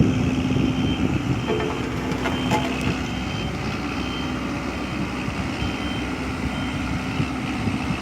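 Engine of a heavy truck or construction vehicle running steadily, with a reversing alarm beeping faintly at intervals.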